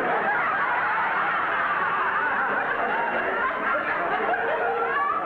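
Sitcom audience laughing: a long, steady laugh from many people at once.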